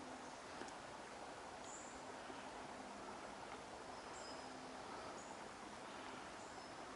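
Faint outdoor ambience at a stream: a steady hiss with scattered short, high chirps and a faint low hum that comes and goes.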